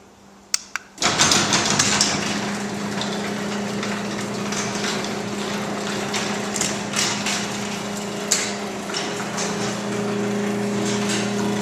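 Two quick clicks, then a LiftMaster 3280 belt-drive garage door opener starts about a second in and runs steadily with a hum while closing the door. The door's steel rollers clatter irregularly in the tracks.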